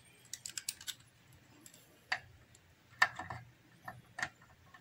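Faint sharp clicks of multimeter test-probe tips tapping and scraping against the amplifier's supply terminals and wiring: a quick run of clicks in the first second, then single clicks about once a second.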